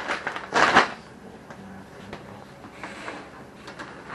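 A reusable shopping bag rustling as it is swung open and handled, loudest just under a second in, followed by light knocks of items being packed into it.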